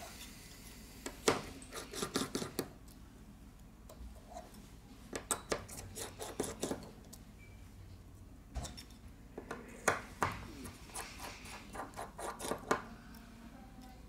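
Small repair tools and screws clicking, tapping and scraping against an opened smartphone's frame, in several quick clusters of light clicks.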